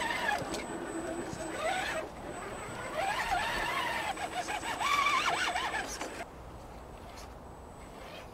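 RC rock crawler's electric drive motor and gears whining under throttle, the pitch rising and falling as the throttle is worked, easing off about six seconds in.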